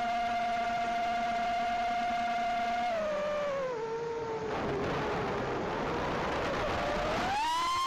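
Whine of a small FPV quadcopter's brushless motors and HQ T2.5x3.5x3 three-blade props, heard from the camera on board. The steady high whine drops in pitch about three seconds in as the throttle comes off. It turns rough and wavering for a few seconds, then climbs sharply near the end as the throttle is punched.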